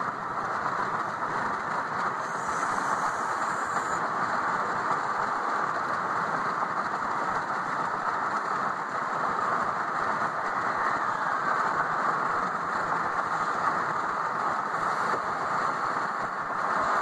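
Steady road and wind noise inside the cabin of a moving vehicle: an even rush with no change in pitch or level.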